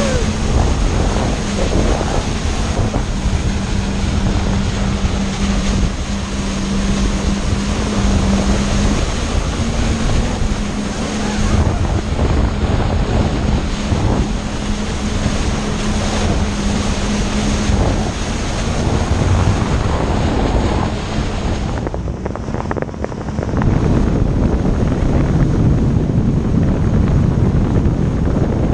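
Yamaha WaveRunner personal watercraft running at speed on the open sea: a steady engine drone under the rush of spray off the hull, with wind buffeting the microphone. Near the end the rush dips briefly and then comes back heavier.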